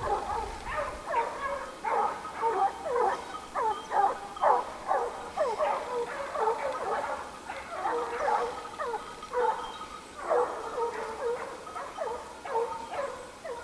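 A pack of hunting hounds baying, many short falling cries overlapping several times a second, the running pack giving tongue on the chase of a wild boar.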